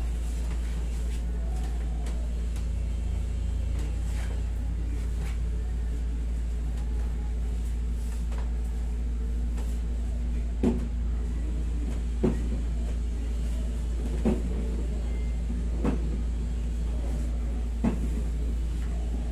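Steady low hum of a room air-conditioning unit. In the second half five short, sharp knocks come about every two seconds during hands-on massage of the back.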